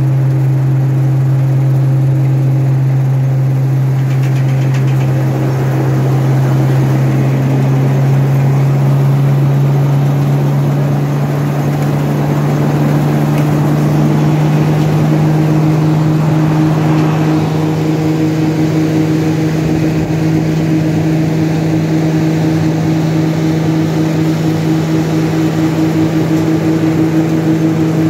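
New Holland 9090X olive harvester running under load: a loud, steady engine drone with a low hum. The rushing noise of its conveyors and threshing gear comes up about four seconds in and eases off a little past the middle.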